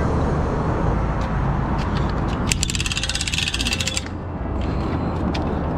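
A ratchet clicking rapidly for about a second and a half, about midway, over a steady low rumble.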